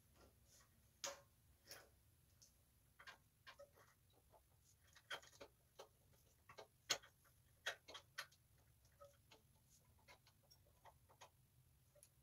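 Faint, irregular metallic clicks and clinks of a roller chain being handled by hand on a mini bike's drive sprocket, the loudest about seven seconds in.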